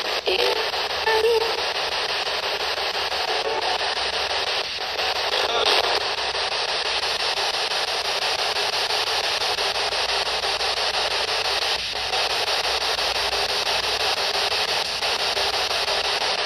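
P-SB11 spirit box, a radio scanner sweeping through FM stations, giving a steady hiss of static from its small speaker. A few brief louder blips come through in the first second or so and again about six seconds in.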